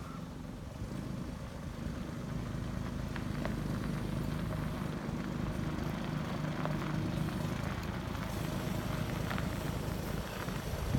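Scania P94 truck's diesel engine running steadily at idle, growing a little louder about two seconds in, with a few faint clicks.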